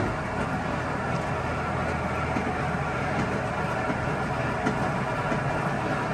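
Maytag top-load washer running with a steady low hum and a rough, uneven mechanical noise, after a short click right at the start. The noise is the sign of a bad tub bearing, as the owner judged it.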